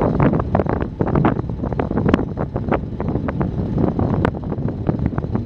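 Wind buffeting the microphone in uneven gusts, a loud rumbling noise with frequent short flares.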